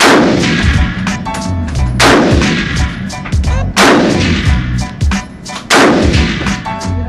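Four single shots from a 7.62 NATO semi-automatic rifle, about two seconds apart, each loud crack followed by a long echoing tail.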